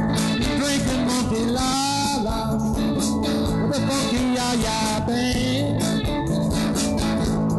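A live rock-and-roll band playing: acoustic and electric guitars over drums.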